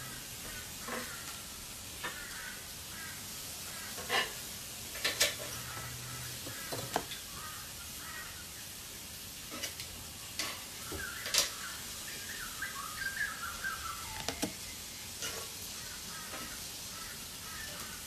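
Eggplant and zucchini slices sizzling on a barbecue grill, with a steady hiss. Metal tongs click sharply and irregularly against the grill grate as slices are turned and lifted off.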